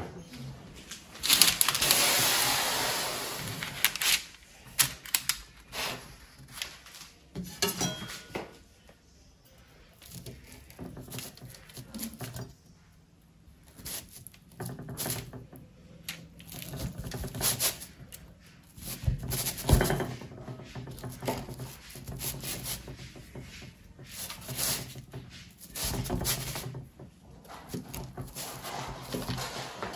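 A large kitchen knife cutting through a baked pizza crust on parchment paper: irregular crunching and clicks of the blade, with a louder noisy stretch in the first few seconds.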